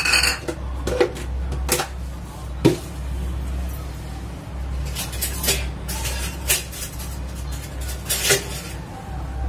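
Scattered knocks and clinks of kitchen bowls and a container being handled and set down on the countertop, about seven in all, the loudest a little under three seconds in, over a steady low hum.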